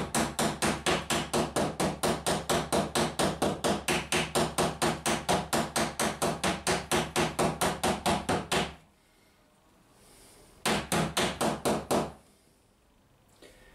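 Ball-pein hammer tapping rapidly, about five light strikes a second, to peen over the cut end of a copper boat nail, with a second hammer held behind the nail as a dolly. The strikes stop about nine seconds in, and a second short run of taps follows a couple of seconds later.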